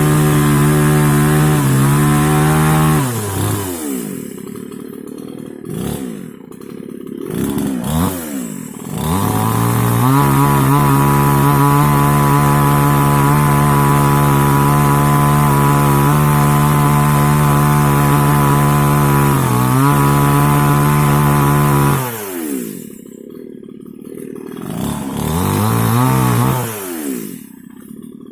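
Mini chainsaw's two-stroke engine held at full throttle for long steady stretches, dropping back to idle twice, with short revs up and down in between.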